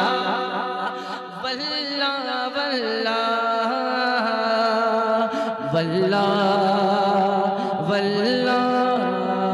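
A man singing a naat through a PA microphone, drawing out long held notes that step and slide up and down in pitch, with no clear words.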